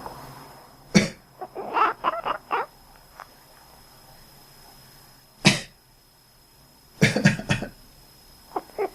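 A person coughs several times, and a resting cat answers with runs of short, quack-like calls after the coughs.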